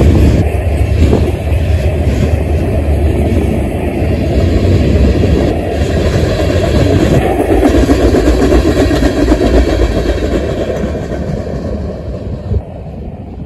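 Freight train cars rolling past at close range, steel wheels running steadily on the rail. The sound fades over the last few seconds as the final tank car goes by, with one sharp click just before it dies away.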